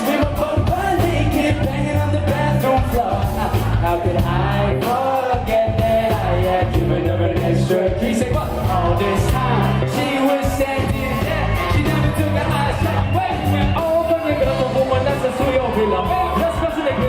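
Live rock band playing with a singer, over a steady, driving beat.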